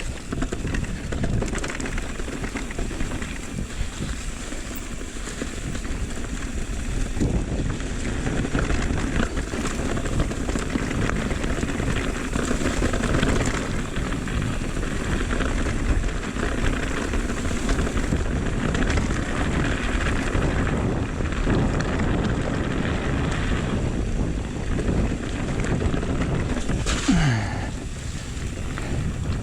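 Electric mountain bike riding over a dirt trail: a steady rumble of tyres over dirt and rock with the bike rattling, and wind buffeting the camera microphone. Near the end comes a short squeak that falls in pitch.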